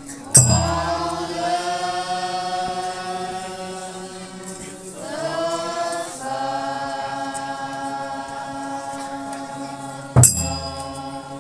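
Group of voices chanting a Naga folk dance song in two long held phrases, each sliding up into its note, the second coming about five seconds in. A loud sharp thump comes with the first phrase and another near the end.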